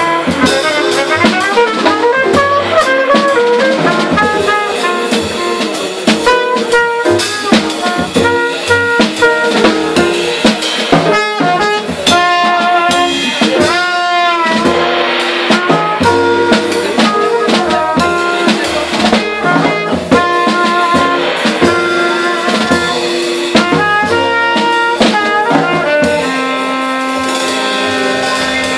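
Live jazz: a cornet plays a lead line of quick notes over drums with cymbals and upright bass, with a long held note near the end.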